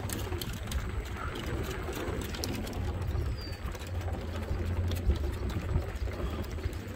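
Footsteps and a small dog's claws ticking on wooden dock boards during a walk, over a steady low rumble. A short high chirp falls away about three seconds in.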